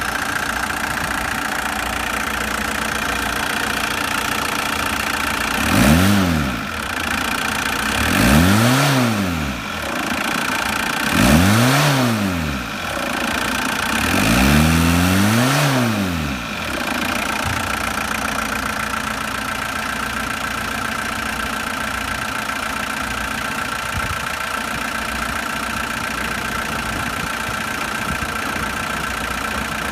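VW Golf GTD 1.6-litre turbo-diesel engine idling, revved four times in quick succession between about six and sixteen seconds in. Each rev rises and falls back, the last one held a little longer, before the engine settles back to a steady idle.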